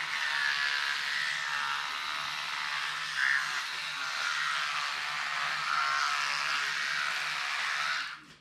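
Teeth being brushed: a steady scrubbing hiss of toothbrush bristles on teeth, which stops abruptly about eight seconds in.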